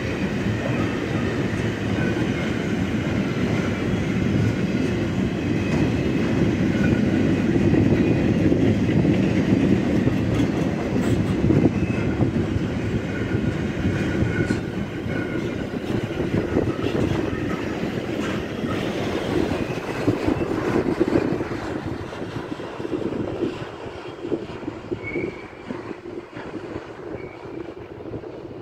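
Loaded double-deck autorack freight wagons rolling past: a steady rumble of steel wheels on the rails, with thin high wheel squeals over it. The noise fades from about three-quarters of the way in as the last wagons go by.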